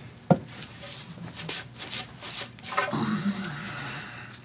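Two long wooden boards, used as giant chopsticks, knocking and scraping against each other. There is a sharp knock about a third of a second in, then a run of clicks and scrapes in the middle.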